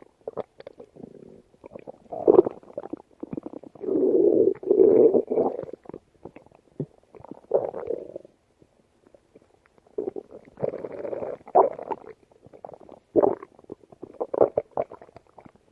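Stomach growling: a run of irregular gurgles and rumbles, with the longest, loudest stretch about four to six seconds in and shorter bursts later.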